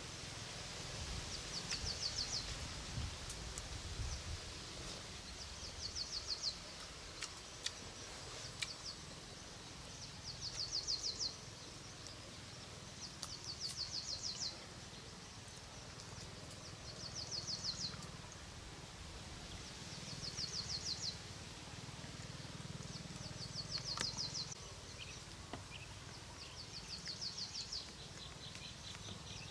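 Outdoor ambience with a small animal's high, rapid trill, each lasting about a second and repeating about every three and a half seconds. A few faint clicks come in between.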